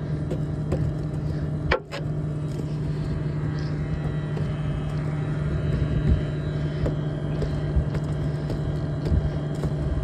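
Tractor engine idling steadily, with irregular scrapes and knocks of a hand scraper against a soil-caked plough mouldboard as the dirt is cleared off.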